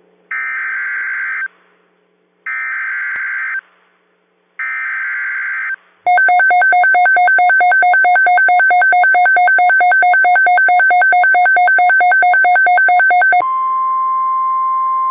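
Emergency Alert System tones. Three short bursts of warbling SAME digital header data open the Tornado Watch alert, then a loud, rapidly alternating two-tone attention signal plays for about seven seconds. That changes into a steady, quieter single tone, the NOAA Weather Radio alert tone.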